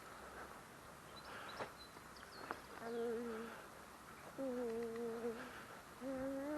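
A person humming close by: three held, steady notes of about a second each, their pitch shifting slightly from one note to the next like a slow tune. Faint bird chirps come just before them.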